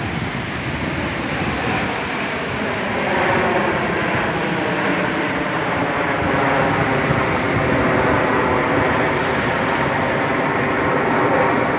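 Aircraft engine passing in display flight, a steady drone with many tones whose pitch bends slightly as it goes by, growing louder about three seconds in.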